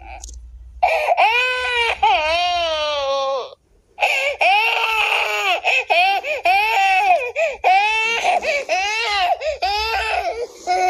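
A baby crying hard: long, high-pitched wails that rise and fall in pitch, with catches of breath between them and a brief pause a little before four seconds in.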